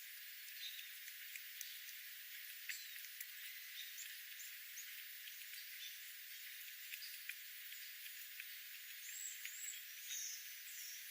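Small birds giving faint, high-pitched short chirps, several in quick succession near the end, over a steady hiss with scattered light ticks.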